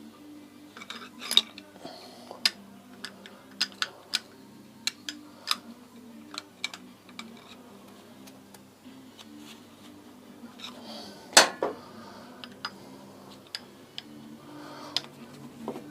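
Metal brake caliper parts and hand tools clinking and clicking as they are handled during motorcycle brake reassembly: scattered sharp clinks, the loudest about eleven seconds in.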